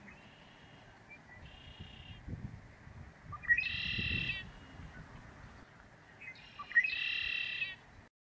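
A blackbird singing: two clear songs, about three and a half and six and a half seconds in, each a short opening note followed by a buzzy trill of nearly a second, with two fainter song phrases before them.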